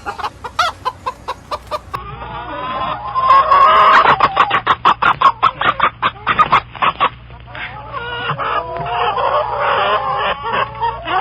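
Domestic chickens clucking: a fast run of short clucks, then longer, wavering calls near the end.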